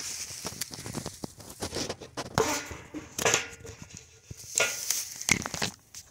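Footsteps crunching on dry ground, with irregular rustling and a few louder crunches.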